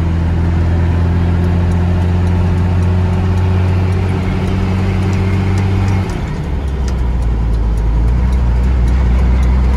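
Mercedes-Benz 1113 truck's inline-six diesel engine running loud under way, heard from inside the cab. About six seconds in its note drops sharply to a lower pitch, then slowly climbs again.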